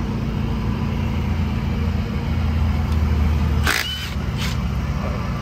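Steady low rumble of a running engine, swelling slightly near the middle, with a sharp knock about two thirds of the way through and a lighter one shortly after.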